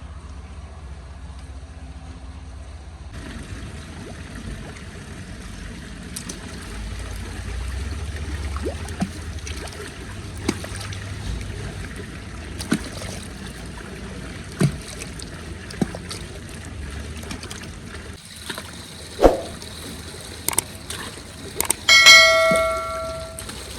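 Scattered knocks and clicks of metal cookware being handled over a low steady rumble, then near the end a metal pot or utensil struck with a clang that rings for about a second.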